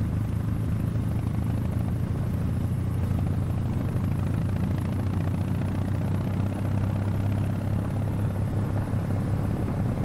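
Kawasaki W800's air-cooled parallel-twin engine running steadily at cruising speed, with wind rushing over the microphone.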